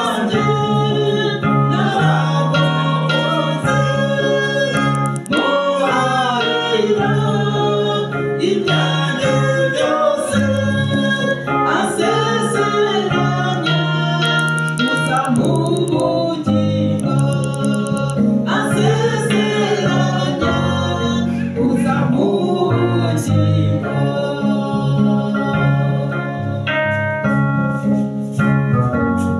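Gospel song: a woman and a man singing into microphones over sustained organ-like keyboard chords.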